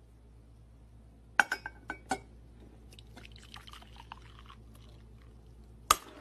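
Glass clinking quietly: a few sharp ringing clinks about a second and a half in, a faint rustling stretch around the middle, and one more clink near the end.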